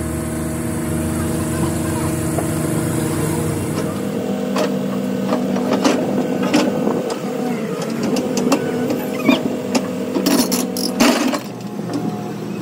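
An engine running steadily. From about four seconds in, many sharp clicks and knocks sound over it until near the end.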